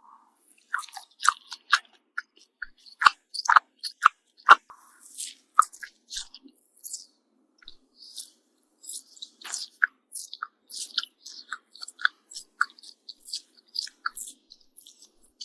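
Close-miked chewing of pancake with honey and fried bacon: many short, sharp mouth clicks, with a run of louder bites about three to four and a half seconds in, then softer, steady chewing.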